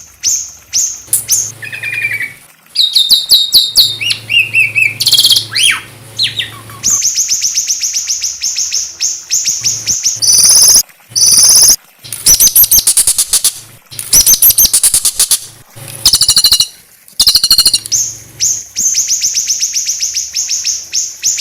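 Small songbird singing long, fast runs of high repeated notes and rapid trills, with a few whistled glides, broken by short pauses. This is the harsh, rapid-fire 'tembakan' style of song used as training song for white-rumped shamas.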